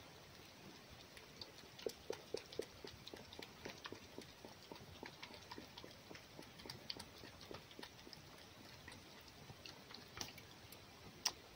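Fox lapping and eating raw egg from a hand: quick, irregular wet clicks of tongue and jaws. A few louder smacks come about two seconds in, and there is one sharp click near the end.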